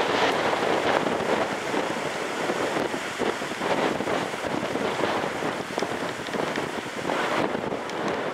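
Strong wind rushing over the microphone, a fluctuating noise with no pitch to it.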